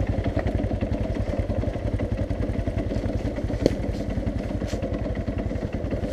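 Dirt bike engine idling steadily, with one sharp click a little over halfway through.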